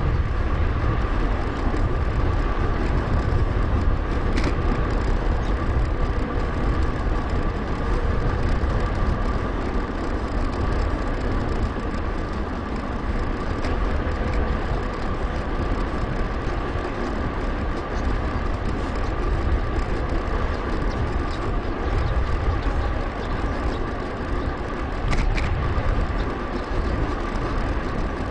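Wind buffeting the GoPro's microphone and the rolling noise of a MERIDA BIG.NINE 7000 mountain bike on the move, sped up 2.5×. A steady high whine runs under it, with a couple of faint ticks.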